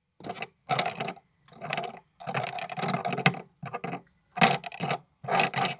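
Handling noise from hands rummaging among a fan of makeup brushes close to the microphone: a string of short clattering, rattling bursts with brief silent gaps between them.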